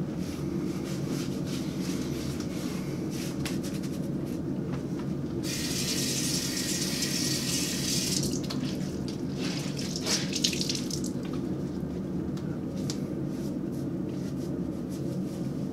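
Bathroom tap running into a sink for about two and a half seconds, starting about five seconds in, then splashing water until about eleven seconds in, over a steady low hum. Before and after, a towel rubs softly over a freshly shaved face.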